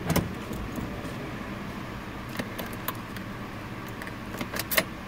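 Light clicks and taps of the metal-and-plastic ignition switch and lock cylinder assembly being handled and seated in the steering column: one sharp click at the start, then scattered small clicks in two clusters, over a steady low hum.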